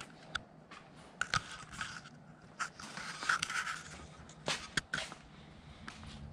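Scattered short scrapes and clicks of someone walking on a concrete workshop floor while handling a hand-held camera, with the loudest rubs around the middle.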